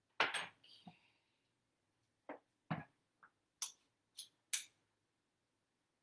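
Utensil scraping and tapping against a measuring cup while scooping sticky peanut butter into it: a string of short scrapes and taps, the first the loudest.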